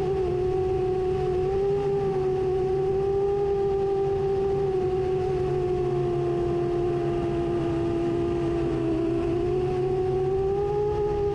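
FPV drone's motors whining steadily as one strong tone with overtones. The pitch sags a little about nine seconds in and rises again near the end.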